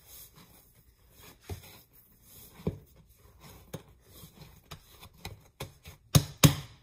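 Hands working and dividing bread dough on a kitchen countertop: scattered light taps and scrapes, with two sharp thumps in quick succession near the end.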